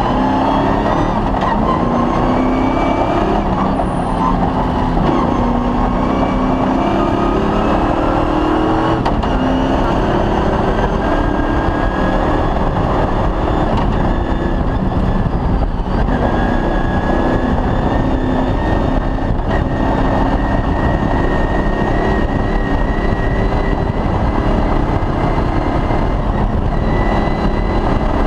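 Cross-country rally car's engine driven hard, its pitch repeatedly climbing and dropping back as it is revved through the gears, over a constant loud rush of drivetrain and road noise.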